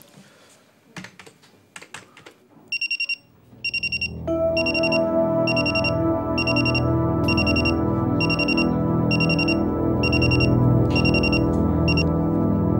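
Mobile phone ringing: a high electronic trill repeated about twice a second, starting about three seconds in and stopping just before the end when it is picked up. Sustained keyboard background music comes in about four seconds in and runs under the rings.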